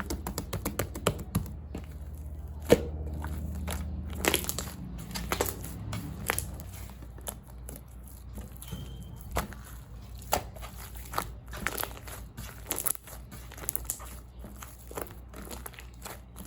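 Foam-mixed slime being squeezed, stretched and poked by hand, giving irregular wet clicks, pops and crinkly crackles, with a sharper snap about three seconds in.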